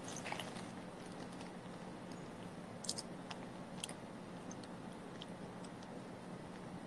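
Quiet eating: a few faint clicks and crackles as food is picked apart with the fingers and chewed, over a steady hiss and a low hum.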